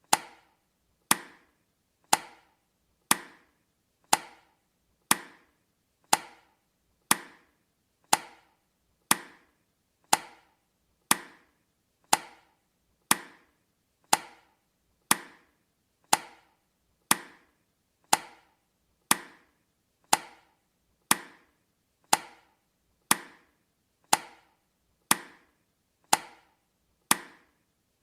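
Countdown timer's tick sound effect: one sharp, short click every second, evenly spaced and steady.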